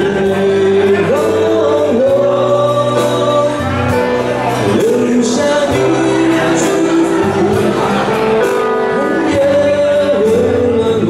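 Live band playing a slow Mandarin pop ballad on keyboard and guitar, a voice singing long held notes over a steady bass line.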